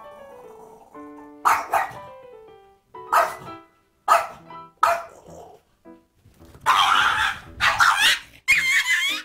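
Small dog barking, about five short, sharp barks, over background music with falling runs of notes; from about two-thirds through, longer high, wavering squeals take over.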